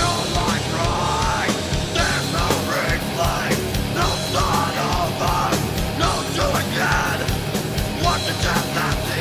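Loud rock band recording: guitars, bass guitar and drums playing hard, with a lead vocal sung in a shouting style over them.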